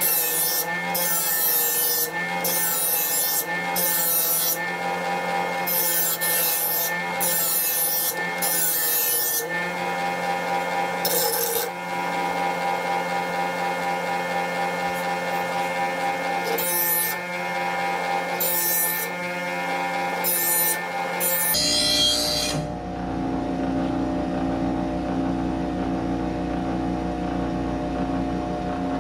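Bench grinder running with a steady hum while a steel mower blade is held against the grinding wheel at a 45-degree angle. It makes a rasping grind in short repeated passes. The grinding passes stop about 21 seconds in, leaving a steadier running sound.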